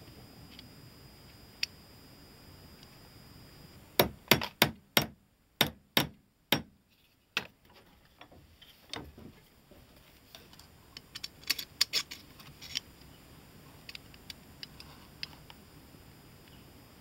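Sharp clicks and taps of small gun parts being handled on a Hahn .45 BB pistol's opened frame and trigger guard: a quick run of about eight loud clicks a few seconds in, then another cluster a little past the middle.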